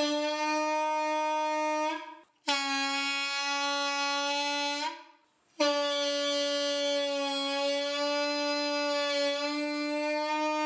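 Homemade balloon bugle, a stretched balloon membrane on a plastic tube, blown by mouth so the vibrating membrane sounds a buzzy, horn-like note. Three long blasts with short breaks between them, the second a little lower in pitch, the third the longest.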